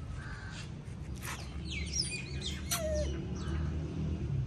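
Birds chirping and calling, a cluster of quick high calls about two seconds in, over a low steady hum.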